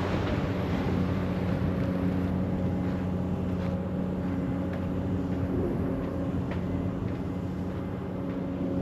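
A heavy machine's engine running steadily at a constant pitch, with a few sharp knocks partway through.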